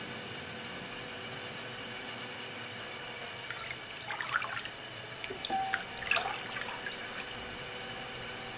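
Water splashing and dripping in irregular clusters, beginning about three and a half seconds in, over a steady hum.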